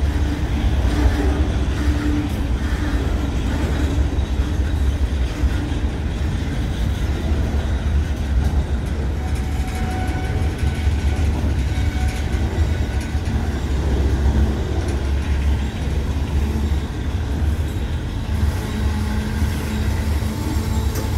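A train rolling past: steady heavy rumble of railcars on the rails. Faint thin squeals from the wheels come and go about halfway through.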